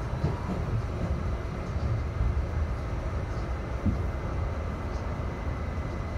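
R68A subway car running along the line, heard from inside the car: a steady low rumble of wheels on rail with a faint steady high tone. A single knock comes about four seconds in.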